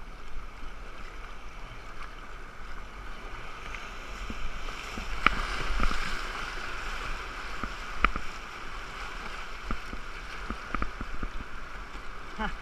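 River water rushing through a rapid around a kayak, with several sharp splashes from paddle strokes and chop against the boat. The rush grows louder a few seconds in, as the kayak enters the whitewater.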